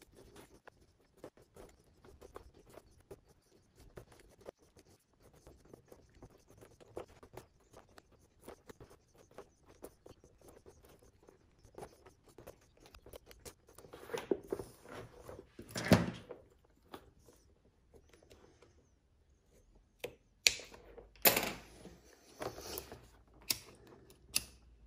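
Hand saddle-stitching leather: thread drawn through the stitching holes of a leather bag handle, making faint rustles and small ticks, with one sharp knock about sixteen seconds in and a cluster of sharper clicks and knocks in the last few seconds.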